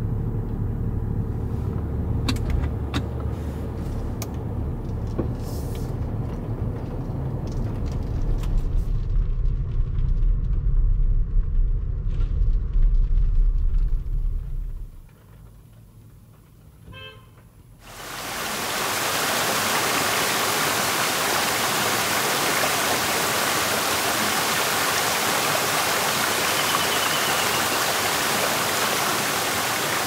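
Low steady rumble of a car driving, with a few clicks, for about fifteen seconds. After a short lull, from about eighteen seconds in, a steady rush of a mountain stream's flowing water takes over.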